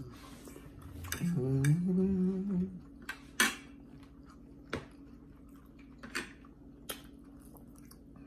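Metal forks clicking against plates, several sharp separate clinks a second or so apart. About a second in, a person hums a rising, then held 'mmm' lasting about a second and a half, the loudest sound.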